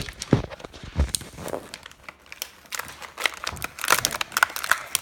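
Plastic toy packaging crinkling and crackling in the hands as a Grossery Gang pack is opened, with a couple of dull knocks in the first second.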